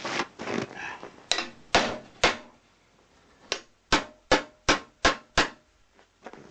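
Hammer blows on metal, knocking a part into place on a snowmobile's steering: three strikes, a short pause, then six quick strikes about two and a half a second, each with a brief ring.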